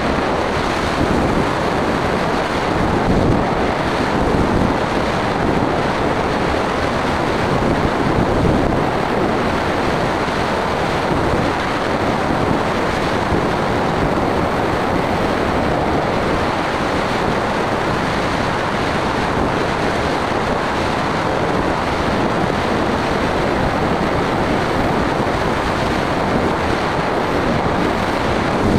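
Steady rush of airflow over an onboard camera's microphone on an aircraft in flight, an even, loud noise with no clear engine note.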